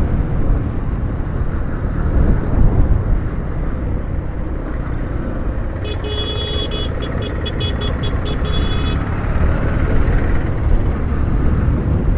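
Wind buffeting and road and engine noise from a motorcycle being ridden. About six seconds in, a vehicle horn sounds in a string of quick repeated beeps for about three seconds.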